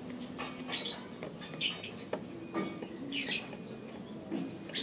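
Small birds chirping in short, repeated calls, several a second, with a single light tool click about two seconds in.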